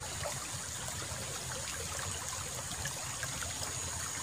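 Water in a small irrigation ditch running and trickling steadily, with a thin, steady high tone above it.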